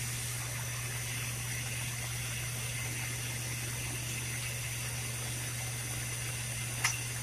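Oxygen-fuel glassworking bench torch burning with a steady hiss over a constant low hum, while borosilicate glass is heated in its flame. One short click near the end.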